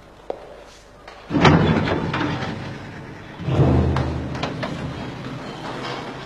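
Sounds of a scuffle: a heavy thud about a second in, then a second, heavier thud a couple of seconds later, each trailing off slowly with rough scraping.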